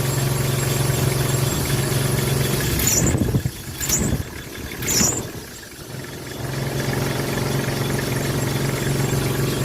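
Car engine idling with a squeak from the belt drive, which could be the accessory belt or a pulley bearing. Partway through, the engine drone drops away for about three seconds, with three sharp clicks about a second apart, then comes back.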